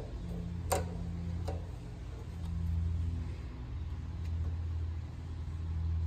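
Screwdriver working the terminal screws of an air compressor's pressure switch: one sharp metal click about a second in and a fainter tick after it, over a steady low hum that swells and fades.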